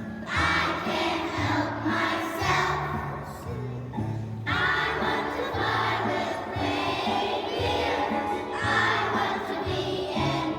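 Kindergarten and first-grade children singing a Christmas song about being an elf as a group, over an instrumental accompaniment with a regular bass line.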